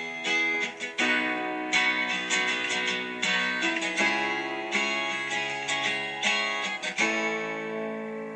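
Music with strummed acoustic guitar: a new chord is struck about once a second, and the last chord is left ringing and fading near the end.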